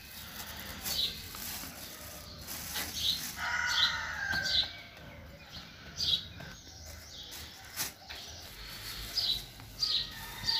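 Small birds chirping: short high chirps every second or two, with a longer call about three and a half seconds in.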